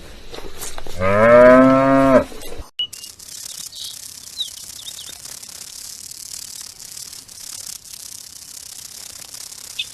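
A cow mooing once, a single loud call of just over a second about a second in. It is followed by a steady hiss with a few faint high chirps.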